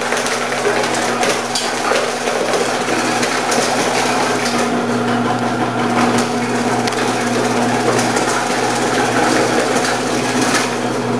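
Omcan HLC 300 vegetable cutter running with a thin slicing disc, its motor humming steadily while carrots fed down the side chute are cut with a dense crunching crackle.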